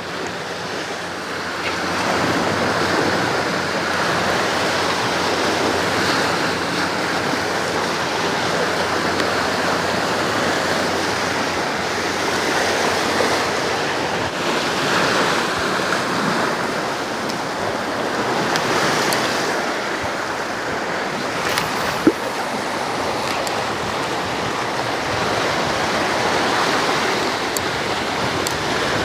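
Sea waves washing on the shore, a steady rushing noise, with one sharp click about 22 seconds in.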